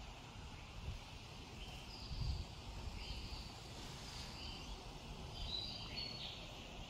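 Birds chirping in short high calls over a faint steady hiss of water spraying from the pole's jets onto the glass, with a low uneven rumble.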